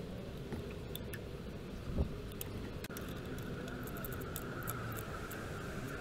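Light scattered clicks and taps of hands and a small tool working on the metal breaker plate of an open distributor, over a low steady rumble, with one soft thump about two seconds in.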